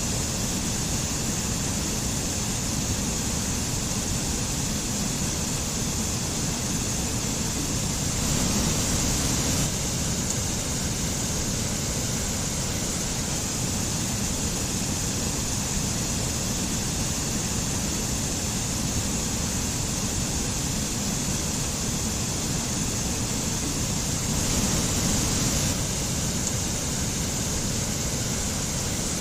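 Mountain stream and waterfall: a steady rush of running water that swells slightly twice for a second or so.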